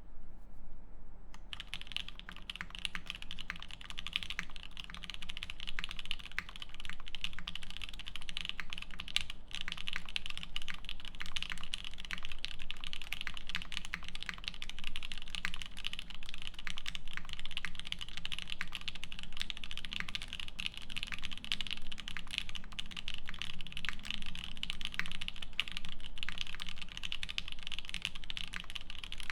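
Continuous fast typing on a Keycult No.1/65 mechanical keyboard, with lubed and filmed H1 switches in a half polycarbonate plate and GMK doubleshot keycaps: a dense, steady run of keystroke clacks that picks up fully about a second and a half in.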